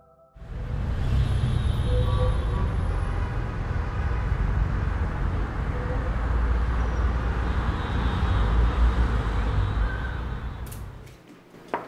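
Steady city traffic ambience with a deep low rumble, fading out near the end. In the last second, quick, evenly spaced knocking on a door begins.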